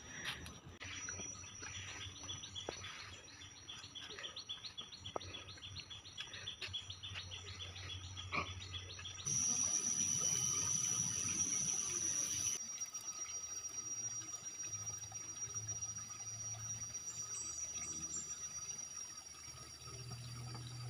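Forest insects and birds calling: a fast, evenly repeating high chirp for the first half, then a loud, steady, high-pitched insect buzz that starts abruptly about nine seconds in and eases a few seconds later, with a few faint knocks.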